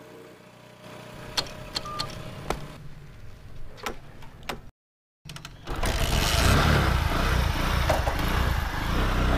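Motorcycle engine: a few clicks over a faint low hum, then after a brief silent break about halfway it runs loudly and steadily as the bike pulls away.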